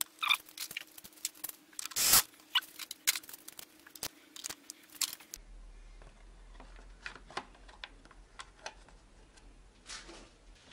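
Irregular clicks and knocks of hands handling plastic and metal parts and tools in a car's engine bay, busier for the first few seconds and then sparse.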